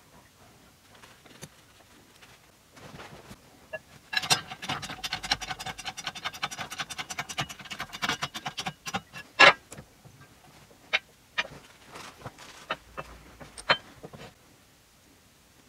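Light metal-on-metal handling of an aluminium crankcase and pressing tools at a hydraulic shop press. A run of rapid, ringing metallic ticks lasts several seconds, followed by a handful of separate sharp clinks and taps.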